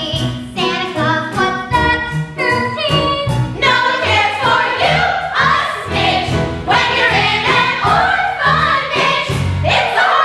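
A group of children singing a show tune together, with instrumental accompaniment keeping a steady beat.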